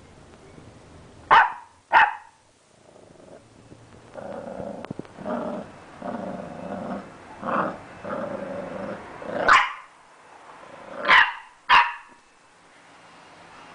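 A three-month-old bulldog puppy barking and growling at its own shadow. Two sharp barks come early, then a stretch of rumbling growls, then three more barks near the end.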